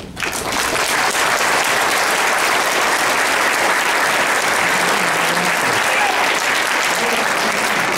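Audience applauding, breaking out suddenly and holding steady.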